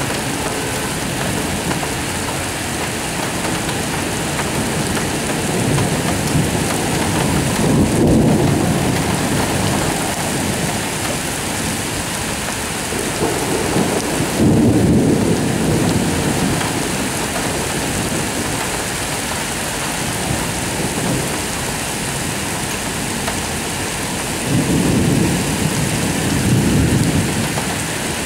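Steady rain falling in a thunderstorm, with three long rolls of thunder rumbling over it: about a quarter of the way in, about halfway, and near the end.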